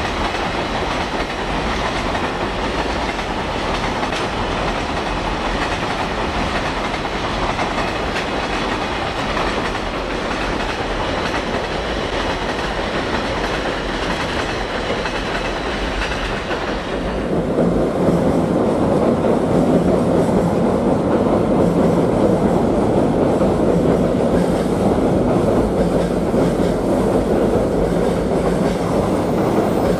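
JR Freight container trains of Koki flatcars rolling past, a steady rush of wheels on rail with a clickety-clack over the joints. About 17 seconds in the sound changes suddenly to a deeper, duller rumble of a container train running over the elevated bridge.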